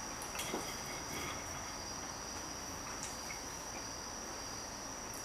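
Crickets trilling: a steady, unbroken high-pitched trill, with a few faint clicks of a knife and fork against the plate.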